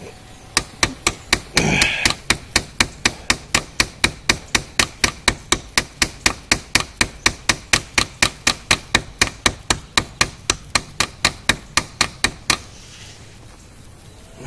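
Hammer striking the spine of a steel Nedfoss bushcraft knife, driving its blade into a tree trunk. A rapid, even run of sharp blows, roughly four to five a second, that stops near the end.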